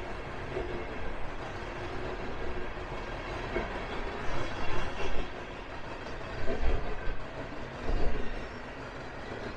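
Train cars rolling past with a steady rumble, their wheels thumping irregularly over the track joints, the loudest thumps coming from about halfway through.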